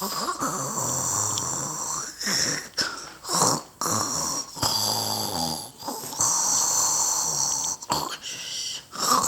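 Several Christmas gnome decorations playing recorded snoring at once: irregular, overlapping snores that start and stop every second or two.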